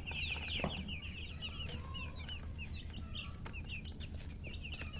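A group of baby chicks peeping: many quick, high chirps overlapping thickly at first, then coming more sparsely.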